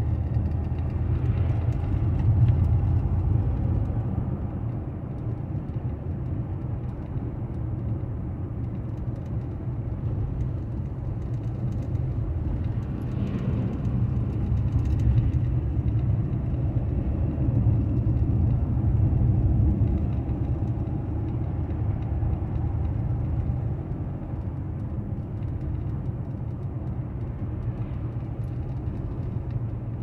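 A car driving along the highway, heard from inside: a steady low rumble of road and engine noise that swells and eases a little.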